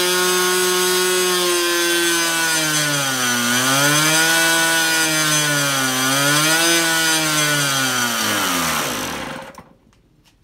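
Tower Hobbies .75 two-stroke glow (nitro) model airplane engine running at high speed with its propeller, its pitch sagging twice and picking back up, then winding down and stopping about nine and a half seconds in.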